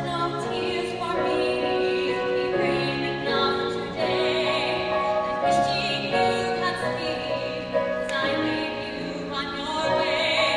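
A woman singing a Broadway-style ballad solo, holding long notes with vibrato, over instrumental accompaniment.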